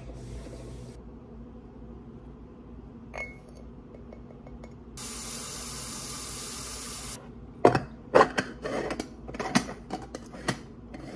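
Aluminium moka pot being handled and assembled, with a run of sharp metal clinks and knocks in the second half. Before that comes a steady hiss lasting about two seconds.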